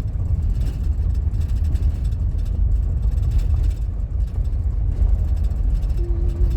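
Steady low rumble of a minivan's engine and tyres heard from inside the cabin while driving on an unpaved mountain road. A short faint tone sounds near the end.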